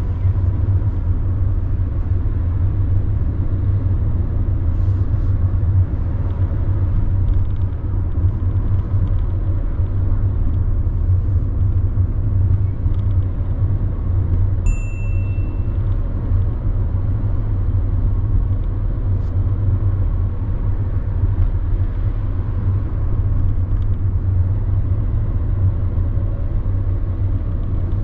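Steady low road and engine rumble inside a moving car's cabin, with one brief high beep about halfway through.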